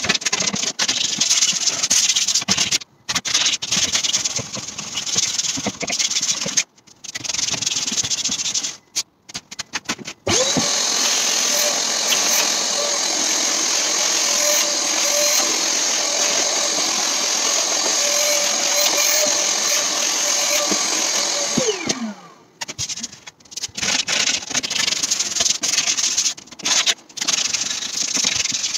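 Irregular scratchy rubbing on the wooden door panel, worked by hand. About ten seconds in, a workshop vacuum switches on: its motor whine rises to a steady pitch, runs for about eleven seconds, then winds down as it is switched off. After that the scratchy rubbing on the wood resumes.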